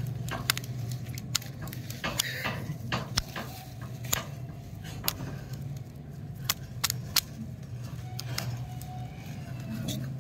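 Wrapped stick lollipops being picked up and gathered into a bunch in the hand: scattered sharp clicks and crinkles as the wrappers and sticks knock together, over a steady low hum.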